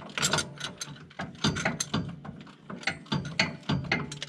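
Ratchet wrench clicking in short, uneven runs as a mount bolt is turned.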